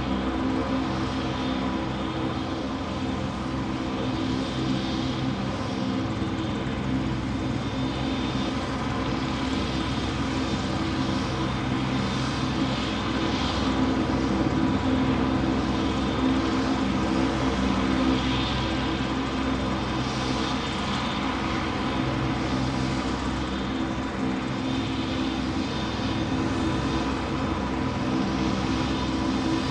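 Steady engine drone, even in level, with several held hum tones over a rushing hiss.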